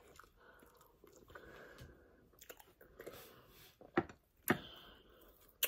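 Close-miked chewing and mouth smacking as a person eats pounded yam and vegetable soup with snail and fish by hand. A few sharp clicks stand out, loudest about four and four and a half seconds in.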